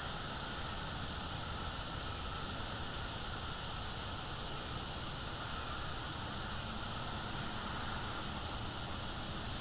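Steady evening insect chorus, several unbroken high buzzing bands, over a low rumble of outdoor microphone noise.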